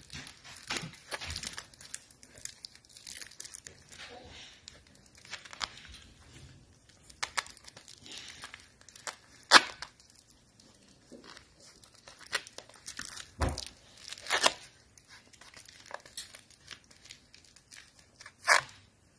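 An Alapaha Blue Blood Bulldog puppy chewing and tugging at a plush toy: irregular scratchy rustling and tearing noises with a few sharper clicks, and one low thump about two-thirds of the way through.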